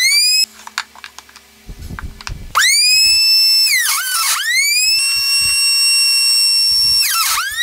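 Router in a router table whining at high speed, its pitch sagging and recovering each time the straight bit is pushed through the board to cut a box-joint slot. The whine cuts off about half a second in, a few knocks of the workpiece follow, and the motor starts up again sharply about two and a half seconds in.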